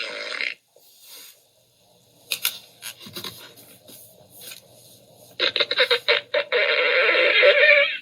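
Fart sound effect from a children's dinosaur sound book: a quick run of sputtering pulses, then a long raspy blast that cuts off at the end. A few sharp clicks come before it.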